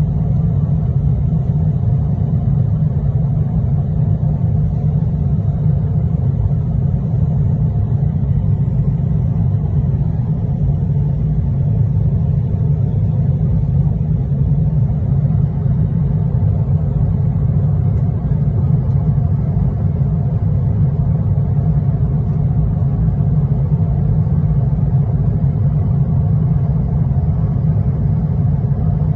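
Steady low rumble of a jet airliner in flight, heard inside the cabin: turbofan engine and airflow noise, unchanging throughout.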